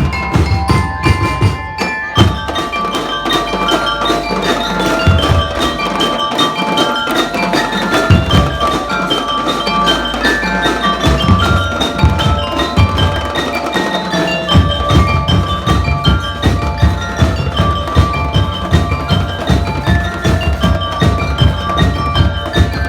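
A drum and lyre band playing: bell lyres ring out a quick melody of short, bright notes over marching drums. The drums drop back for stretches in the middle and return in full about 14 seconds in.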